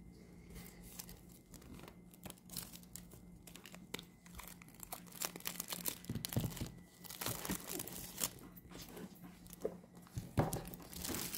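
Clear plastic shrink-wrap being torn and peeled off a small product box by hand, crinkling and crackling in quick irregular bursts. The crackles grow busier from about halfway, with the loudest rip about ten seconds in.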